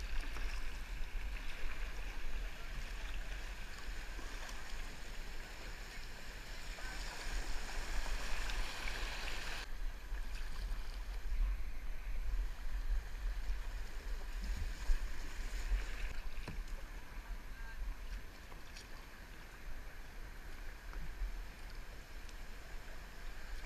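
Rushing whitewater around a kayak running an artificial whitewater course, heard from the paddler's helmet camera, over a steady low rumble. About ten seconds in the bright hiss of the water drops suddenly and the sound turns duller.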